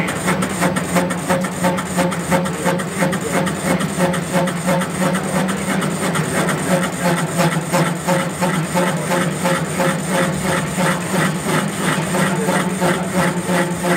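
WEISS WBL210D bench lathe running and turning a large rusty workpiece: a steady motor hum with a regular pulsing knock a few times a second as the tool cuts.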